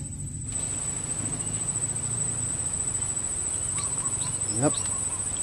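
Steady, high-pitched insect trill, one unbroken tone. A brief rising sound about four and a half seconds in stands out above it.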